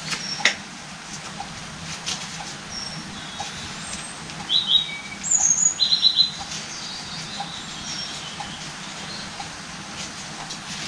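A small bird chirping in quick bursts of short, high notes around the middle. A single sharp knock about half a second in, over a steady low hum.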